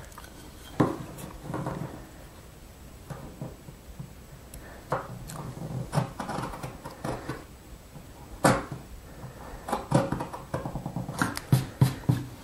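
Marking knife and square worked on a wooden board to lay out a notch: light scraping strokes with scattered sharp clicks and knocks of the metal tools on wood, several quick ones near the end.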